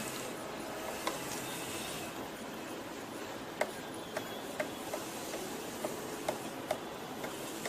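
Small sharp clicks and ticks, irregular at about two a second from the middle on, as the screws holding the laptop's processor cooler are loosened, over a steady hiss.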